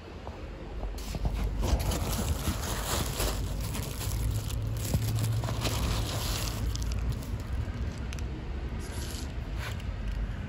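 Rustling and scraping handling noise as the phone is jostled against an arm and clothing, with a low rumble in the middle.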